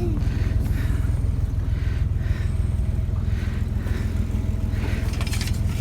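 Truck engine running steadily, a low even rumble.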